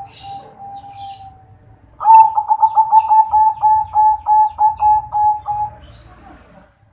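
Zebra dove (perkutut) cooing: a faint held note, then about two seconds in a loud, fast run of evenly spaced coo notes, about four a second, lasting nearly four seconds. It is a crisp, clear 'kresing' voice, from a local × Bangkok crossbred bird.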